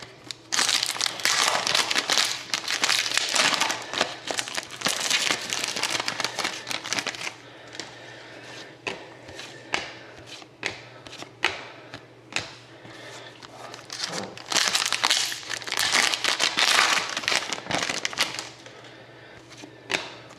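Plastic trading-card pack wrappers crinkling and tearing open in two long spells, with scattered sharp clicks and taps between them as packs and cards are handled.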